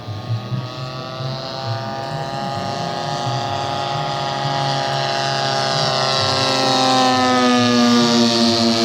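Radio-controlled model airplane engine and propeller in flight, growing steadily louder as it comes closer, its pitch slowly dropping through the second half.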